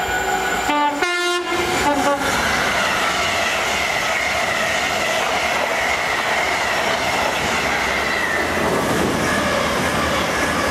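Express passenger train sounding a two-note horn blast about a second in, then running past at speed with a steady rush of wheels on rails.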